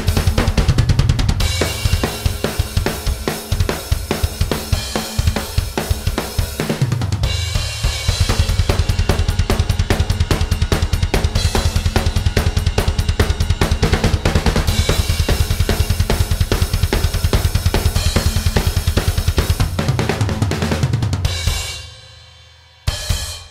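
Metal drumming on a Yamaha Stage Custom kit with two bass drums, an aluminium snare and Paiste cymbals: a fast, steady stream of double-bass-drum strokes under snare hits and cymbal wash. Near the end the playing stops and the cymbals ring down, then there is one more sharp hit.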